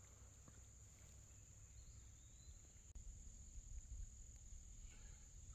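Near silence outdoors, with a faint, steady, high-pitched insect drone of crickets or similar insects, and a faint low rumble.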